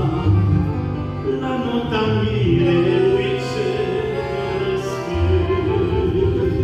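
A man singing a hymn into a microphone while playing a piano accordion, with its held chords and bass notes sounding under his voice.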